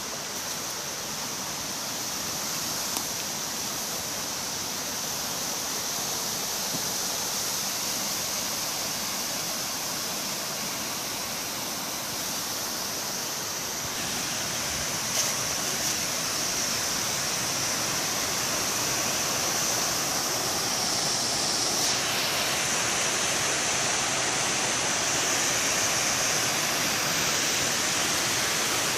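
Waterfall cascade rushing steadily, a continuous wash of water noise that grows gradually louder.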